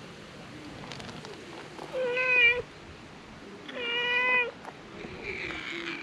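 Stray cats meowing: two clear, drawn-out meows about a second and a half apart, the second from a ginger tabby, then a fainter, rougher meow near the end.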